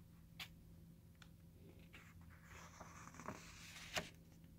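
Faint rustle of a book page being turned, a soft papery swish about two and a half seconds in, with a few light clicks, the clearest just before the end.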